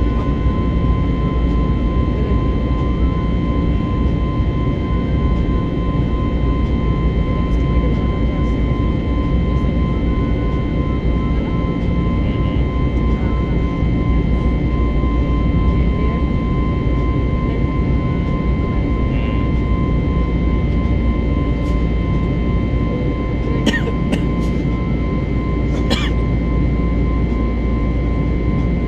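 Jet airliner cabin noise in cruise: a steady deep rumble of engines and airflow with a constant high whine. A few sharp clicks come about three-quarters of the way through.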